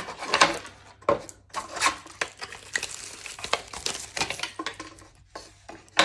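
Unboxing handling sounds: packaging rustling, with many small clicks and clinks as hardware and parts are handled and set down.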